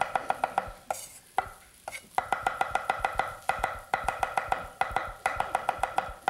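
Chinese cleaver chopping carrot on a wooden cutting board, in fast even strokes of about eight a second, in runs broken by a pause of about a second near the start.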